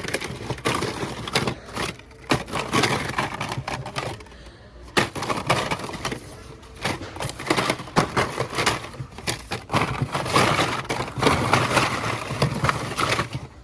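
Plastic-packaged toys being handled and sorted on store shelves: an irregular run of clicks, clacks and rattles, with a short lull about four seconds in.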